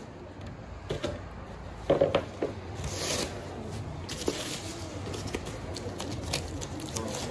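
Rustling and rubbing of packaging wrap and cardboard as flat-pack cabinet panels are handled in their box, with a few light knocks scattered through and a brief louder rustle about three seconds in.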